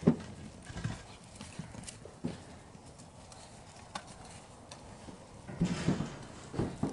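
Scattered knocks and thumps of puppies' paws on loose wooden planks, sharpest just at the start, with a short cluster about six seconds in.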